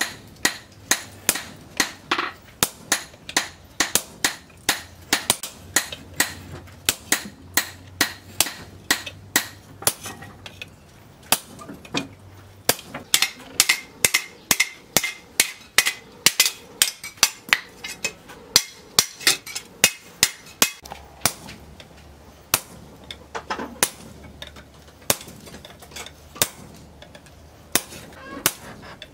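Hammer blows on a red-hot steel blade cut from a tractor plough disc, resting on a post anvil. Some fall on a hot chisel held on the steel to cut its outline, others straight on the blade. They come in a steady run of about two a second, each a sharp metallic strike with a short ring.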